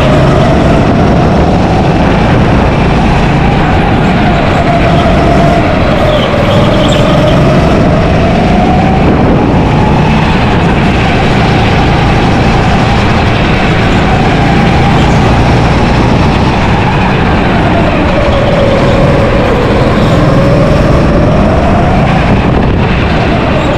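Onboard sound of a go-kart being driven at speed: its motor's pitch rises and falls several times with speed through the corners, over a loud, steady rumble.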